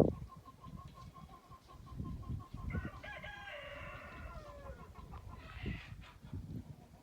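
A rooster crowing once: one long call starting about three seconds in, its pitch falling at the end. It is followed by a short higher call, and there is a thump at the very start.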